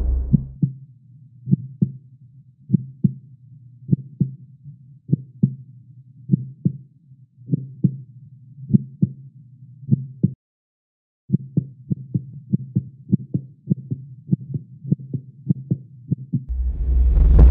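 Heartbeat sound effect: slow, low double thumps about every second and a quarter, which stop briefly a little past halfway and then come back quicker. Near the end a low music drone swells in.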